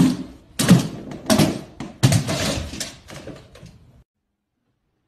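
A run of about five loud bangs, roughly one every two-thirds of a second, each ringing out briefly as in a small room; the sound cuts off abruptly about four seconds in.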